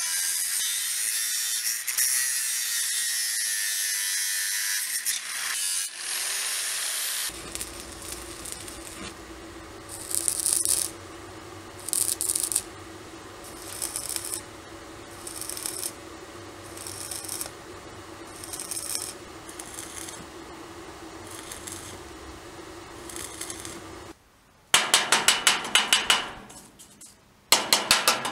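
An angle grinder cutting through steel profile pipe, winding down about seven seconds in. After that come short bursts of grinding every second or two over a steady hum, and near the end two loud clusters of rapid, sharp metallic knocks.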